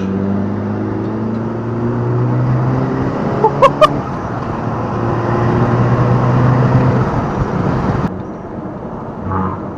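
Audi S3 8P's turbocharged 2.0 TFSI four-cylinder pulling away and accelerating through a 3-inch downpipe, 200-cell sport catalytic converter and stock middle and rear silencers. The engine note climbs steadily, then eases off about eight seconds in. A few short high chirps come about three and a half seconds in.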